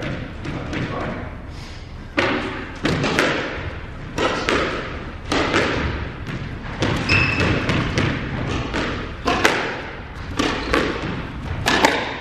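Squash rally: the ball is struck by rackets and smacks off the court walls, with sharp, echoing hits about once a second, sometimes in quick pairs, from about two seconds in.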